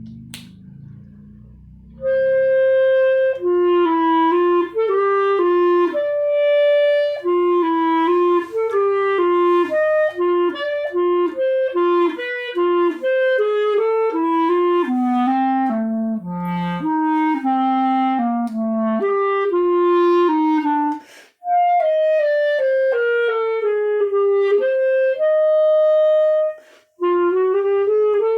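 Overhauled hard-rubber Lafayette student clarinet playing an etude: a run of quick, changing notes that begins about two seconds in, with two short breaks for breath near the end.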